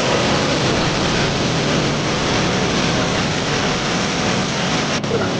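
High-pressure spray cleaning a vehicle radiator: a steady hiss that starts abruptly and breaks off for a moment about five seconds in.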